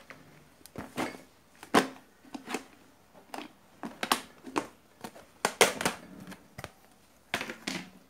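Hands rummaging through a plastic bag of loose spare electrolytic capacitors: irregular rustling of the bag and sharp clicks of components knocking together, about a dozen in all.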